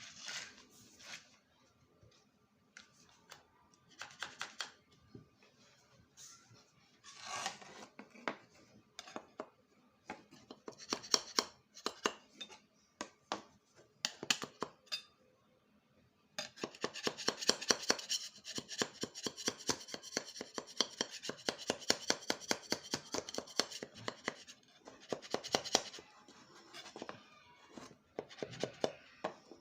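Hand work on small parts: scattered rubbing, clicks and light knocks, then about eight seconds of fast, even rasping clicks before the scattered handling sounds return.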